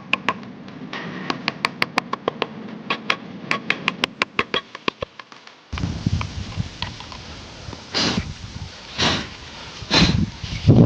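Hand woodworking on a small piece: a quick run of sharp taps and clicks, then, after a change of scene about halfway, slow scraping or rasping strokes about once a second.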